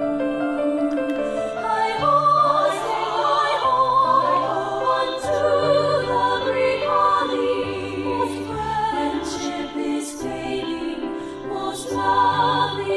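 Choir singing a slow classical song in several voice parts, the upper voices with a wide vibrato, over sustained low notes.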